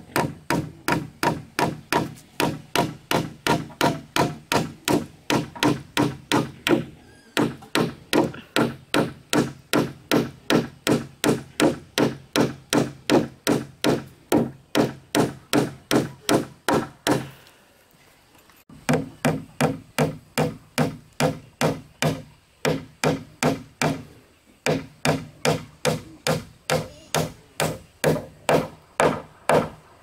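A hatchet chopping along the edge of a wooden boat plank in quick, even strokes, about three a second, each a sharp knock on the wood. The strokes stop for about a second and a half some seventeen seconds in, then go on.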